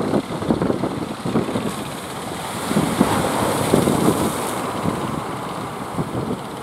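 Wind buffeting the microphone in uneven gusts over the rush of the sea.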